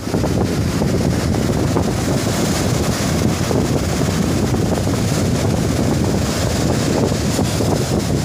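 Steady wind buffeting the microphone, over the wash of sea surf breaking on a sandy beach.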